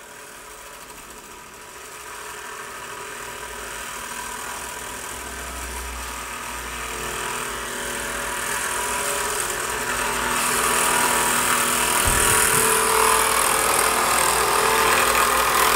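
Steam jets of a Microcosm aeolipile (Hero's engine) model hissing as the sphere spins, growing steadily louder. Faint humming tones join the hiss about halfway through.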